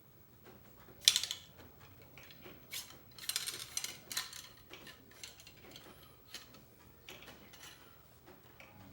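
Cleaning rod with a patch clicking, knocking and rubbing against a CVA Wolf muzzleloader's barrel as the patch is run through the bore. The loudest is a sharp knock about a second in; a busier run of clicks and scraping follows between about three and four seconds.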